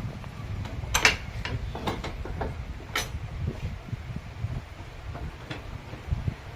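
Mechanical knocking and clicking over a steady low rumble, with the sharpest knocks about one second and three seconds in.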